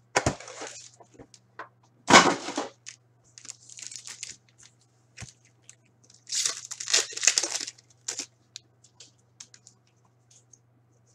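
Upper Deck hockey card packs and their box being torn open by hand: several short bursts of tearing and crinkling wrapper, the loudest about two seconds in, with small clicks of card handling between.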